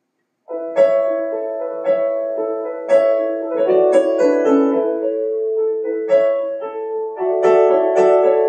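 Piano introduction to a song: sustained chords struck about once a second, starting about half a second in after a brief silence.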